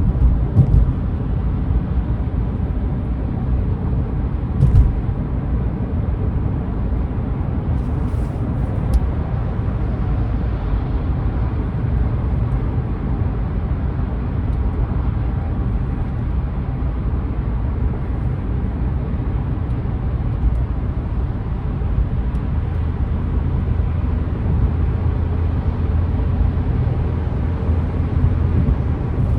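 Steady low rumble of a car's road and engine noise while driving, with a few brief knocks scattered through it.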